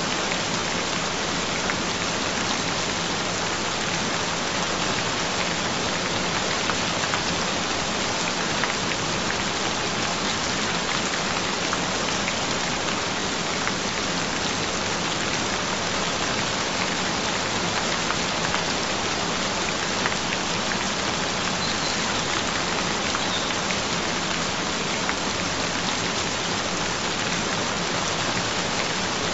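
Steady rainfall, an even patter of rain falling on a surface with no change or break.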